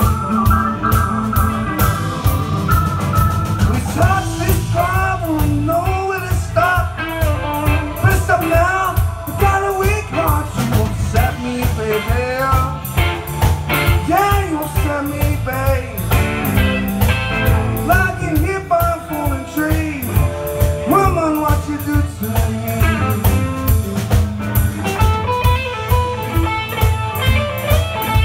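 Live blues band playing: a Les Paul-style electric guitar takes a lead with notes bending up and down in pitch, over bass guitar and a steady drum beat.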